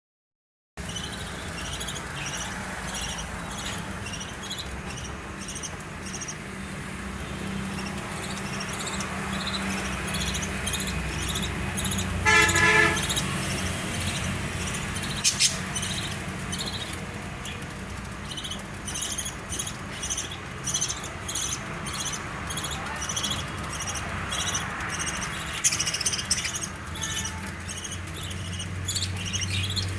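A flock of budgerigars chirping and chattering, many short high chirps in quick succession throughout, over a steady low hum. About twelve seconds in there is a brief loud honk with many overtones, and a sharp click a few seconds later.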